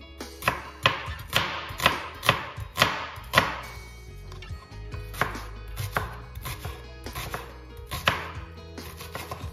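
Chef's knife chopping an onion on a bamboo cutting board: sharp, steady knife strikes about two a second, turning softer about four seconds in.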